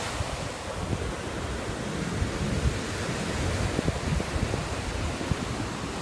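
Ocean surf breaking and washing up onto a sandy beach, a steady rush, with wind buffeting the microphone in low, irregular rumbles.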